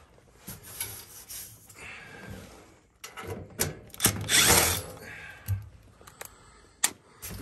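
Cordless drill/driver run in short bursts against a galvanized sheet-metal vent pipe reducer, with sharp metal clicks in between.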